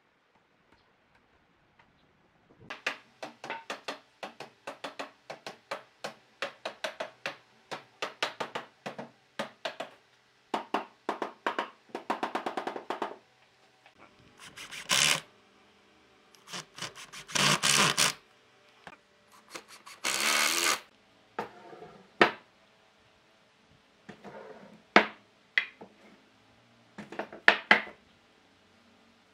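A quick run of wooden taps and knocks, then a power driver driving screws through a board into a log in several short bursts, and a few sharp knocks of timber near the end.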